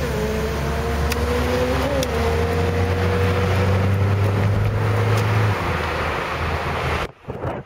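A car's engine and road noise heard from inside the cabin while driving, with a faint whine that slowly rises and drops back twice as the car gathers speed. About seven seconds in the sound changes abruptly to uneven wind buffeting the microphone.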